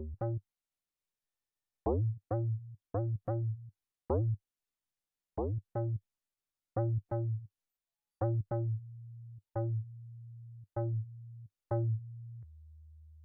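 Siberia 2 FM software synthesizer playing its 'Hard Bass' preset: short, punchy bass notes struck singly and in pairs with gaps between, each opening with a quick pitch glide from the pitch envelope. In the second half some notes ring on as a steady low hum, and near the end one lower note is held for about a second.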